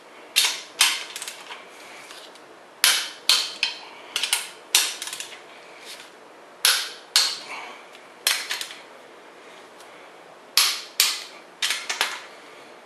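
Click-type torque wrench clicking over at its set torque as the main bearing cap stud nuts on a Chrysler 440 block are brought to 80 ft-lb. The wrench gives a series of sharp metallic clicks in groups of two or three, with short pauses while it is moved from nut to nut.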